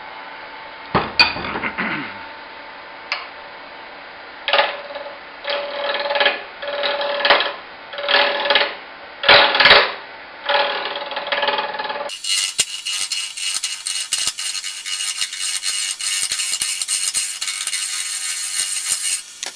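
Lathe running with a small carbide turning tool scraping the spinning deer antler: a series of short cutting passes about a second apart, then from about twelve seconds in a continuous, brighter and hissier scraping cut.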